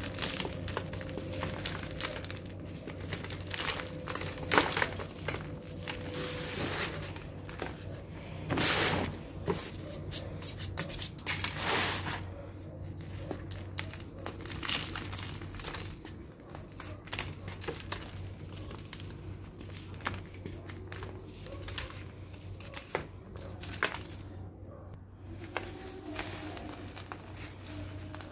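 Lumps of dried sand-and-cement mix crushed and crumbled between the fingers, crunching and crackling, with grit and small chunks falling onto a sheet. There are a few louder crunches in the first half, then softer, quicker crumbling.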